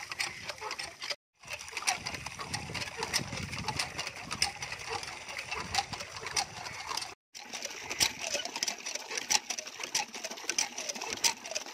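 Hand pump being worked in quick strokes, its iron handle and linkage clanking over and over as water gushes from the spout and splashes into a brick trough. The sound drops out twice, very briefly.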